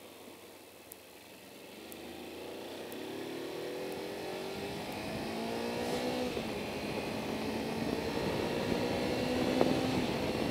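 Kawasaki Versys-X 300's parallel-twin engine accelerating hard: its pitch climbs through one gear, drops at an upshift about six seconds in, then climbs again to another shift near the end. Wind noise builds as speed rises.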